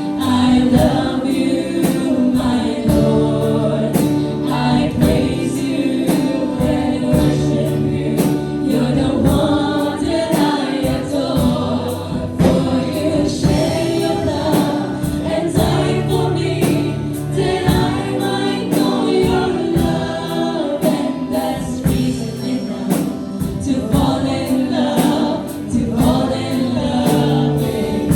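A worship team singing a gospel praise song together as a choir, with band accompaniment and a steady beat.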